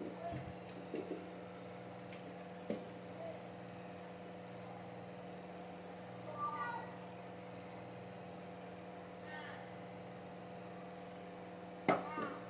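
Steady electrical hum, with a few light clicks and rustles as stiff plastic flower stems are handled and pushed into a vase. Short high calls sound three times: about halfway, a few seconds later, and louder near the end.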